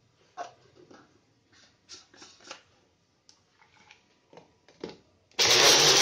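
Small electric spice grinder switched on near the end, running loudly and steadily as it grinds almonds, cashews, poppy seeds and melon seeds with a little water into a paste. Before it, light clicks and rustles as the jar is loaded and set on the motor base.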